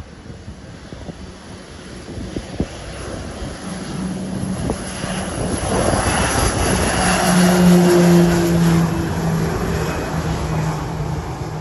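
Twin-engine turboprop at takeoff power on its takeoff roll. The propeller and engine drone swells as it comes past, loudest about eight seconds in, and its pitch drops slightly as it goes by.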